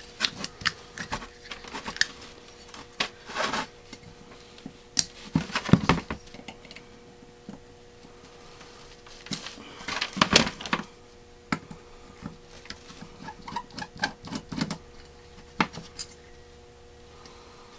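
Metal tools and small carburetor parts clicking, tapping and clattering on a workbench while a Rochester B one-barrel carburetor is taken apart with a screwdriver and pliers. The clicks and knocks come irregularly, louder about six and ten seconds in, over a faint steady hum.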